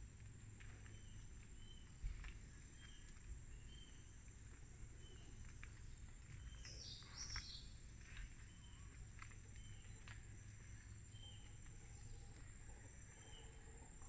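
Faint rainforest ambience: small birds chirping over and over with short high notes, over a steady high-pitched insect buzz and a low rumble. A single thump comes about two seconds in, and a louder bird call about halfway.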